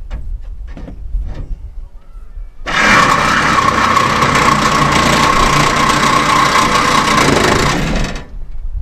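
Cardboard packaging being ripped open in one long, loud, continuous tear of about five seconds, starting about three seconds in and stopping abruptly, after a few short scrapes at the box.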